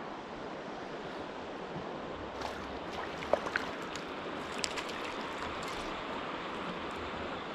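Flowing creek water, a steady rush, with a few light clicks and ticks in the middle.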